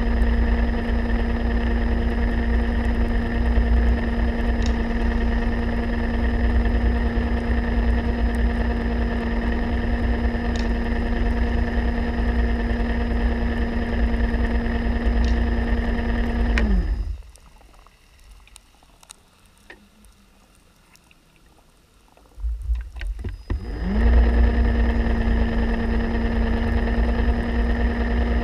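A motor heard underwater, running with a steady hum and low rumble, winds down and cuts out about 17 seconds in, its pitch sliding down. After several seconds of quiet with faint clicks, it starts again about 24 seconds in, its pitch sliding back up.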